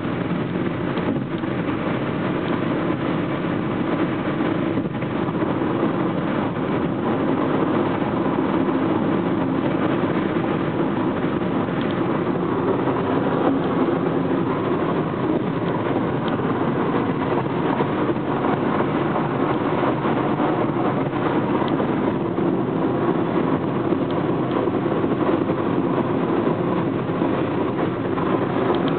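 Steady road and engine noise heard inside a car cabin while driving at highway speed, a continuous rumble of tyres on the road surface.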